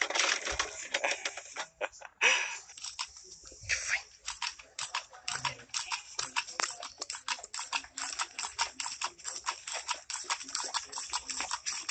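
A few seconds of voices, then a thin jet of water from a squirt toy spattering on a boxer dog's face: a fast, even run of short splashy clicks, several a second.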